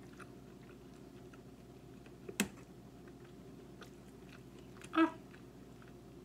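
Close-up mouth sounds of a person chewing a mouthful of shrimp Alfredo pasta: soft wet clicks and smacks. A sharp click comes about two and a half seconds in, and a brief hum of the voice about five seconds in.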